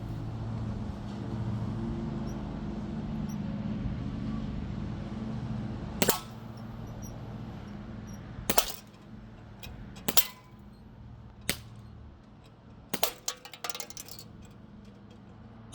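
Crosman Z77 CO2 BB rifle firing a string of shots: sharp cracks every second or two from about six seconds in, some doubled by a metallic clang of a BB striking a can. A steady low hum fills the first six seconds.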